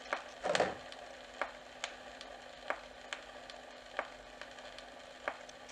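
Sparse, irregularly spaced clicks and pops over a faint hiss and a low steady hum, with a slightly louder soft thump about half a second in.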